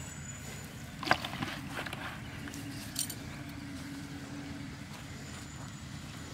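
Faint steady hum of a distant motor, with a sharp knock about a second in and a softer click a couple of seconds later.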